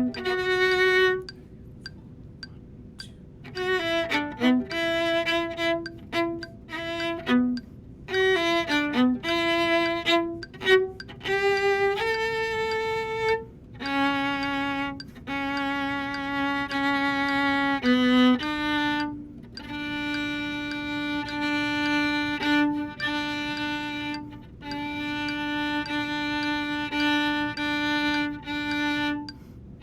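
Solo viola bowing one melodic line: short phrases of moving notes with brief gaps over the first half, then long held notes on nearly the same pitch, bowed again and again with short breaks between them.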